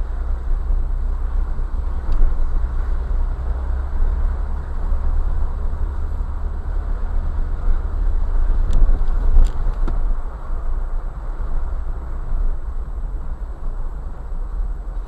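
Jeep driving slowly over gravel: a steady low engine rumble with tyre and road noise, and two brief sharp clicks about nine seconds in.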